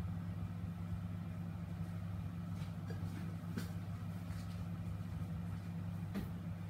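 Steady low electrical or motor hum, with a few faint light clicks and taps about midway and near the end.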